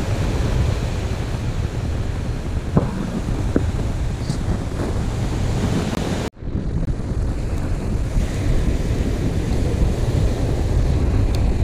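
Wind buffeting the microphone over surf breaking on a beach, a steady rushing noise heaviest in the lows. The sound drops out for a moment about six seconds in.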